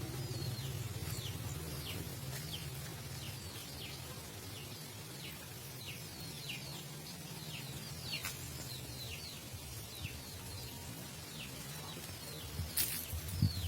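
A caged songbird chirping: short, downward-sliding chirps repeated about twice a second, over a low steady hum. A few sharp clicks come near the end.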